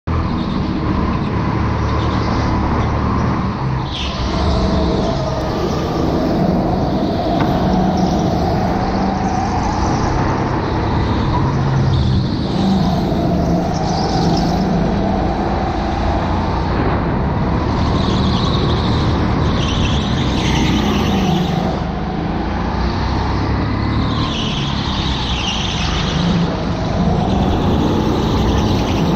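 Go-kart running hard round an indoor track, heard from on board, its motor note rising and falling again and again as it brakes and accelerates through the corners.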